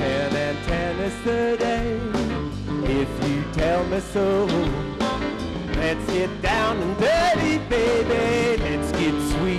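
Live band playing an up-tempo samba-rock song on keyboards, electric guitar and drums, with a bending melody line over the rhythm.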